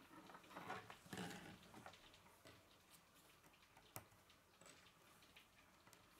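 Faint clicks and rustling of plastic K'nex rods and connectors being handled and snapped together. A louder rustle comes about a second in, and a single sharp click about four seconds in.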